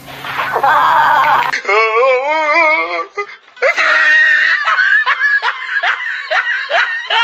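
Comic sound effects: a loud pitched sound cut off abruptly, a wavering, warbling tone, then a run of rapid laughter, about three laughs a second.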